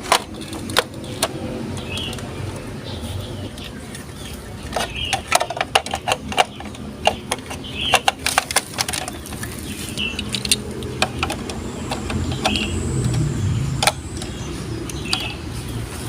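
Glass marbles rolling down a plastic Lego Duplo marble run: a steady rolling rumble with sharp clicks and clacks as they hit the blocks and each other, coming thick and fast about five to nine seconds in.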